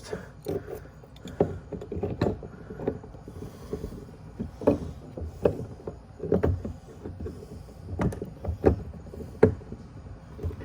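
Irregular knocks and clunks of hoses, fittings and tools being handled inside a boat's hull compartment, about a dozen separate strikes with the sharpest near the end.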